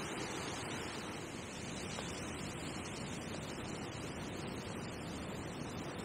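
Steady wind noise: a low rumble of wind buffeting the microphone, with a hiss of wind through the tall bankside grass and reeds.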